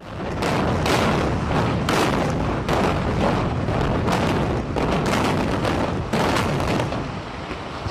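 Controlled building demolition: a series of sharp explosive bangs, about a dozen, irregularly spaced over several seconds, over a continuous low rumble.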